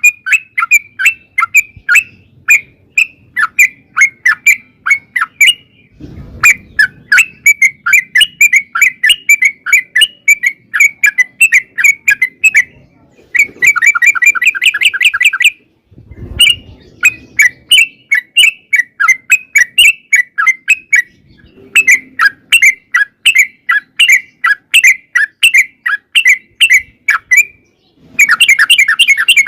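Yellow-vented bulbul (trucukan) singing a long, fast run of repeated chattering notes, several a second, in bouts broken by short pauses.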